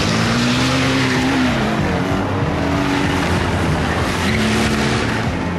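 Small car's engine revving hard, with tyre squeal as the car is thrown through tight turns. The engine note climbs, drops, then climbs again about four seconds in.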